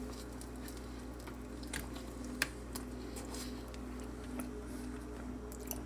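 Faint soft squishes and small clicks from eating a chili cheese dog, over a steady low hum, with one slightly louder click about two and a half seconds in.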